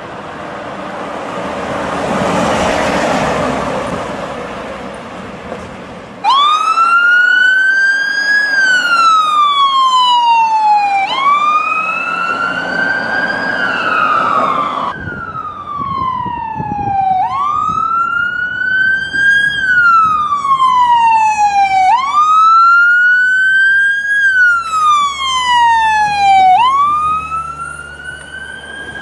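A rushing noise swells and fades, then about six seconds in a New York ambulance siren cuts in on a slow wail. Each cycle sweeps up quickly, climbs a little higher, then slides slowly down, repeating every four to five seconds.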